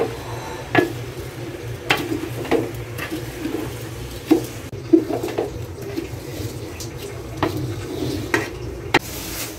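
Wooden spatula stirring and scraping raw rice in a large aluminium pot, knocking irregularly against the metal sides, over a steady low hum. The rice is being fried lightly in the pot before cooking, so that the biryani grains stay separate.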